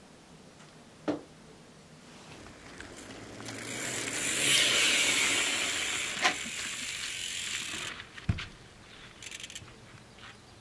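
Mountain bike's rear freehub ratchet buzzing as the bike coasts up, swelling and then fading over a few seconds. A single knock follows about eight seconds in, then a few light clicks.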